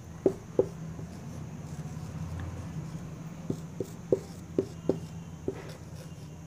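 Marker pen writing on a white board: a series of short taps and strokes as the letters go down, in two spells, over a steady low hum.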